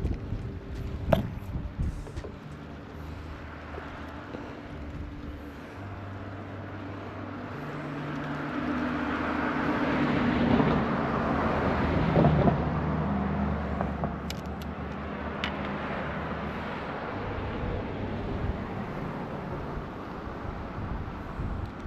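A motor engine passing by: a low hum that swells, is loudest about halfway through, and then fades away. A sharp click about a second in.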